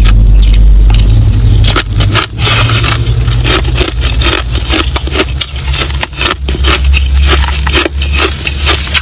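Crushed ice crunching, with many sharp, irregular crackles from about two seconds in, over a steady low rumble.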